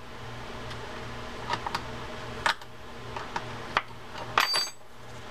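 Small metal parts of an Abu Ambassadeur 7001i baitcasting reel clicking and tapping as the side plate assembly is fitted together by hand, with a louder metallic click and a brief ring about four and a half seconds in. A faint steady low hum runs underneath.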